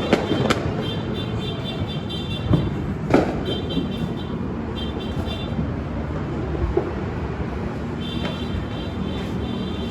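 Outdoor New Year's Eve din: a steady background rumble with a few sharp bangs early on, and short bursts of high-pitched horn tooting that come and go.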